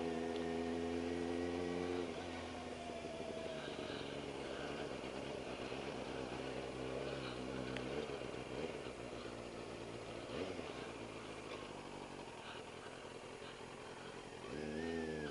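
2001 Triumph TT600 inline-four motorcycle engine running at low road speed. It is held steady at first, then drops off the throttle about two seconds in, with a few short blips of revs, the last one near the end.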